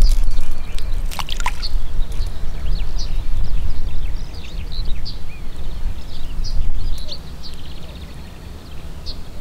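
Wind rumbling on the microphone beside a river, with small birds chirping all through. There is brief splashing at the water about a second in.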